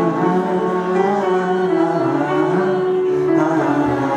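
Live piano and acoustic guitar playing, with wordless singing in long held notes.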